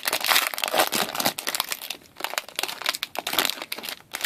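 Plastic or foil wrapping crinkling and crackling as hockey trading-card packs are handled and torn open, with a short lull about halfway through.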